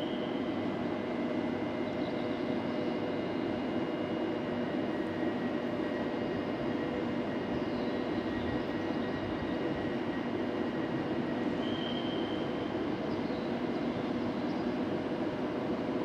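PESA Dart ED161 electric multiple unit approaching slowly under a station train shed: a steady electric hum and drone with faint high whines over it. A short high squeal comes about twelve seconds in.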